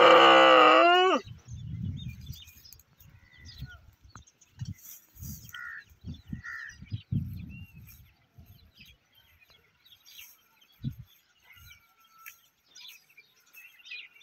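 A dromedary camel's loud, long call that slides down in pitch as it ends about a second in, followed by softer, irregular low rumbling sounds. Faint bird chirps come through now and then.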